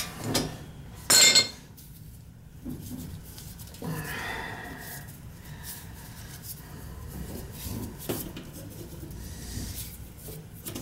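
Metal tools and pipe fittings clinking as they are handled, with one sharp, loud metallic clank about a second in and quieter clinks and taps after it.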